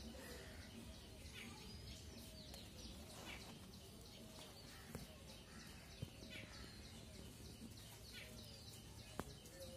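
Near silence: faint outdoor background with scattered faint bird chirps and a few soft clicks.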